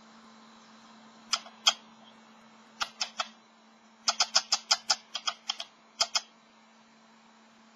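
Great tit tapping inside a wooden nest box, with sharp, ringing taps: two, then three, then a quick run of about ten, then two more. A steady low hum lies under them.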